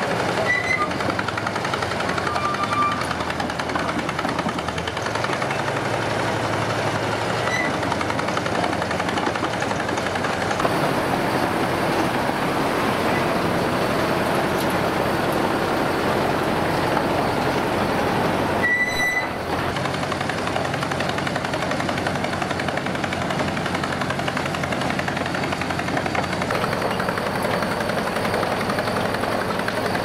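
Bucyrus-Erie 15-B cable backhoe running as it crawls on its steel tracks: a steady, rapid mechanical clatter, with a few short high squeaks.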